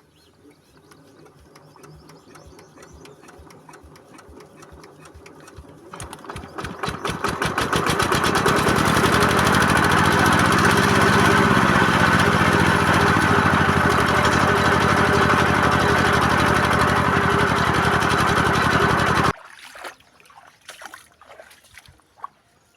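A small engine or motor running, its beats quickening about six seconds in as it speeds up. It then runs loud and steady and cuts off suddenly about nineteen seconds in.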